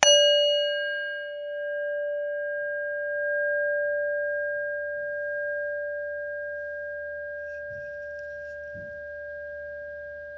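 A single bell-like metal tone, struck once and left ringing, fading slowly with a gentle wavering in loudness; its higher overtones die away within the first second or two.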